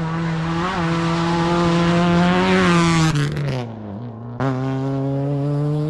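Rally car engine at high revs passing close, loudest about two to three seconds in, then dropping in pitch as it goes by. Halfway through, a second stretch of rally car engine at high revs cuts in abruptly.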